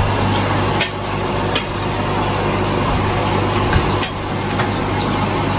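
Aquarium air stone bubbling with a steady fizzing hiss over the constant low hum of the tank's pump, with a few light clicks.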